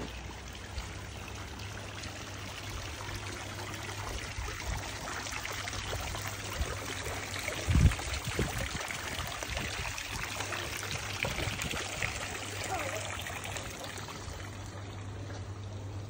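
Water splashing and trickling from a tiered bronze garden fountain, a steady wash of water noise, with a low thump about eight seconds in.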